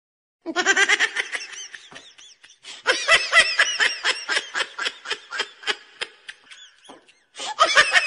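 A person laughing out loud in three bouts of quick ha-ha pulses, the middle bout the longest; the last bout starts near the end.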